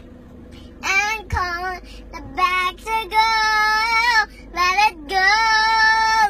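A young girl singing unaccompanied, in short phrases with long held notes, starting about a second in.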